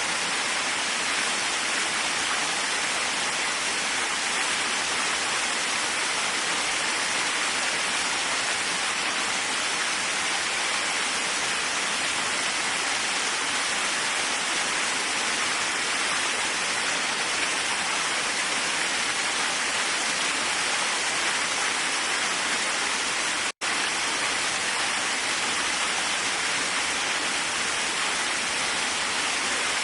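Steady rushing of a waterfall, with a split-second dropout to silence about three-quarters of the way through.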